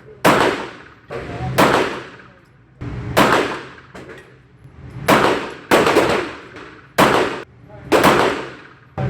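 CZ40-B .40 S&W double-action-only pistol firing a slow string of shots, about seven, each a sharp report followed by a short echoing tail.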